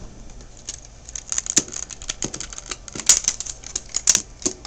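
Irregular hard plastic clicks and rattles as the snap-on plastic Camaro body is pulled off the chassis of a small Xmods radio-controlled car. The clicks come thickest about three and four seconds in.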